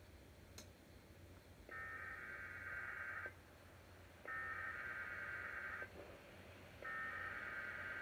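Sage EAS ENDEC sending an Emergency Alert System SAME header: three identical bursts of data tone, each about a second and a half long with short gaps between. They mark the start of an outgoing alert. A single click comes just before them.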